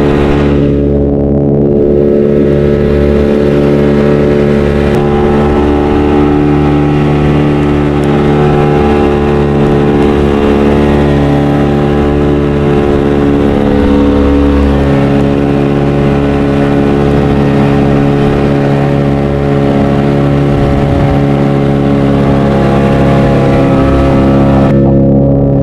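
Fishing boat's motor running steadily at a constant speed while under way, with a haze of wind and water noise over it.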